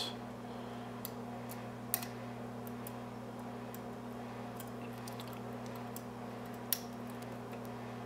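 Small clicks and ticks of a hook pick working the pin tumblers of a brass Brinks padlock under tension, with two sharper clicks about two seconds in and near the end, over a steady low hum.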